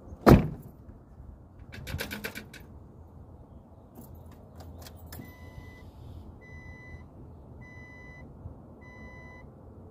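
A thump, then keys jangling and a few clicks, then the 1997–2001 Jeep Cherokee XJ's dashboard warning chime beeps four times, about a second apart, with the key in the ignition just before the engine is cranked.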